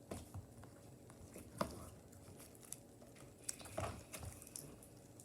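Faint sticky clicks and squishes of clear glitter slime being worked in the hands, a few small pops spread through, the sharpest about one and a half seconds in.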